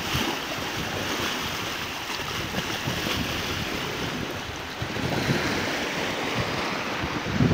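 Steady rushing and hissing of churned water in the wake of a sailboat moving fast under sail, with some wind on the microphone.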